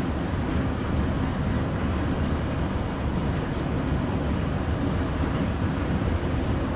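Steady low rumble and hiss of a metro station interior, with running escalators just ahead; no single event stands out.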